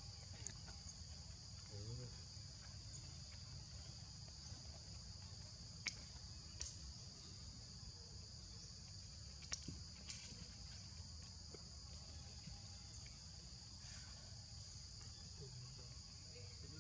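Steady high-pitched insect chorus, with a few faint clicks.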